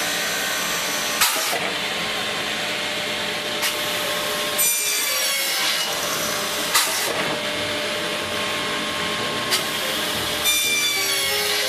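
Pistorius miter saw running steadily as it cuts wooden picture-frame moulding, with a sharp knock every few seconds as a cut goes through and a shifting whine twice.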